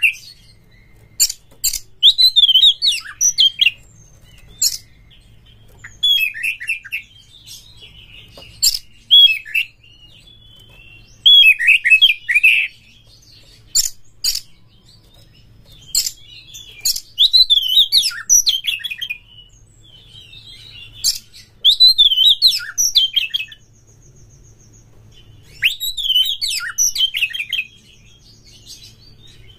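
Oriental magpie-robin singing: short loud phrases of quick whistled, warbling notes mixed with sharp clicking notes, repeated every two to three seconds with brief pauses between.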